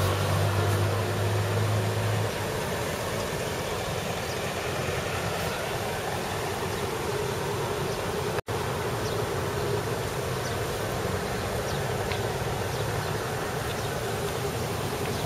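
Steady outdoor background noise, with a low hum that stops about two seconds in and a brief break in the sound about eight seconds in.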